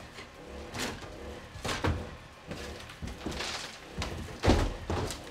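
Walls and ceiling being torn out by hand: irregular thuds, knocks and crunching of plaster and boards, the loudest about four and a half seconds in.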